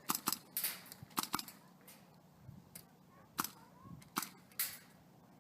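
Airsoft guns firing in the distance: a series of short sharp cracks, about eight single shots at irregular spacing, a couple of them slightly drawn out.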